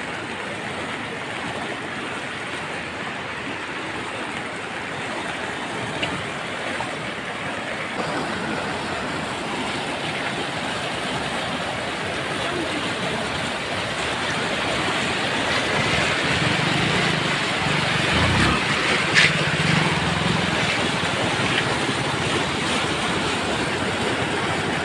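Floodwater of heavy-rain runoff rushing and churning over fields and a road: a steady, loud rush of water that grows a little louder in the second half. A faint low hum comes in for a few seconds past the middle, with one sharp click.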